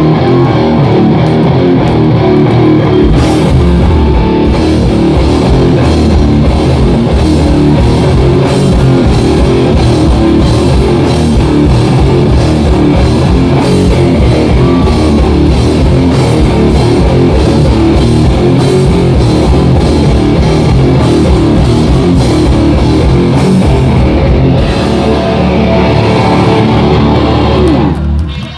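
Loud live hardcore punk band playing, with electric guitars over a drum kit. The song cuts off abruptly near the end.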